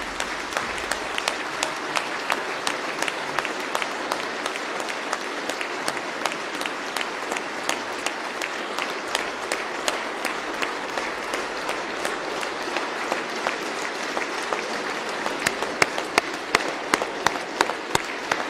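A large standing crowd applauding steadily in a big hall. Near the end, louder claps fall into an even beat of about two to three a second.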